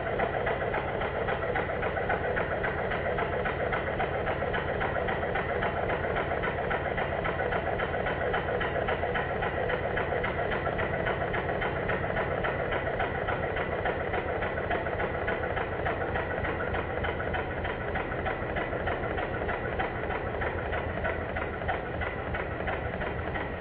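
Stuart triple expansion model engine running on compressed air while being run in: a steady, dense mechanical clatter from its cranks and valve gear. The sound is slowed down along with slow-motion footage.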